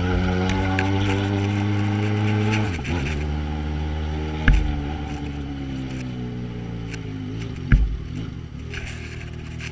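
Yamaha XJ6's inline-four running through an aftermarket Atalla 4-into-1 exhaust, steady under light throttle, then the throttle closes a little under three seconds in and the revs slowly fall as the bike slows. Two sharp knocks come about three seconds apart, the first about halfway through.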